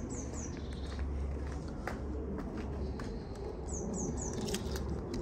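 Footsteps with scattered light clicks over a steady low rumble, while a small bird calls twice, each time three quick falling chirps, once at the start and again about four seconds in.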